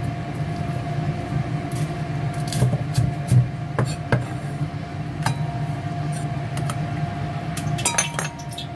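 Cleaver chopping spring onions on a wooden chopping board: scattered sharp knocks of the blade on the wood over a steady low hum, with a quick cluster of clicks and clinks near the end.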